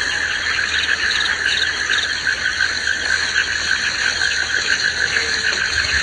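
Tropical forest ambience: a dense, steady chorus of calling insects and frogs, with short chirps repeating over it during the first couple of seconds.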